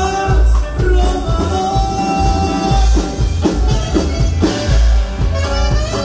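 Live norteño band playing, saxophone and button accordion over drums and a heavy bass line, with held melody notes and a steady beat.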